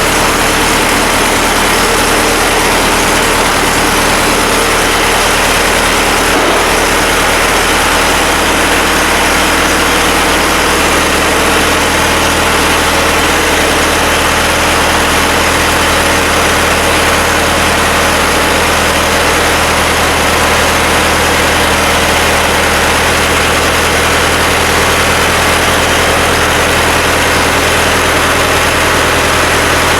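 Freshly rebuilt diesel engine of a 1970 John Deere 400 backhoe idling steadily on its first run after the rebuild.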